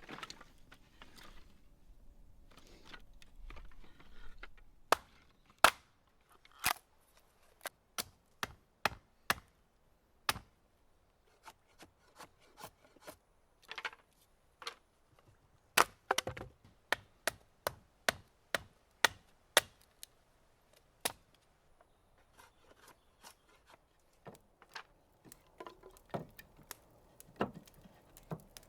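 A hand tool striking wood: a long series of sharp, separate knocks, about one to two a second, with a couple of short pauses.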